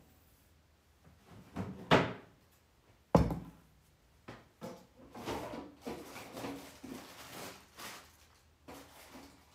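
Kitchen handling sounds at a counter: two sharp knocks about two and three seconds in, the second one loudest, then a few seconds of irregular rustling and small clinks as food items are handled.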